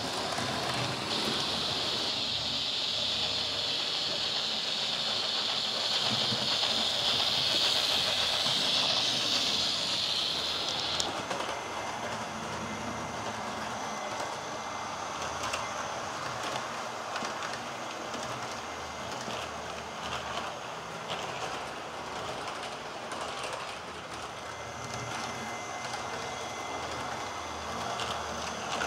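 HO-scale model train running on a layout: a loud steady hiss stops suddenly about eleven seconds in, leaving the softer rolling noise of the train with scattered faint clicks.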